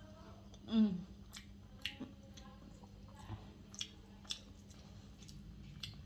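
A woman chewing a mouthful of dal and rice, with small wet clicks every half second or so. About a second in there is one short voiced sound from her throat, falling in pitch.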